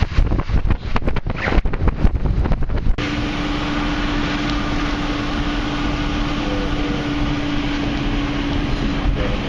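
Gusty wind buffeting the microphone for about three seconds. After an abrupt cut comes the steady road and engine noise of a vehicle driving, with a steady low hum that stops shortly before the end.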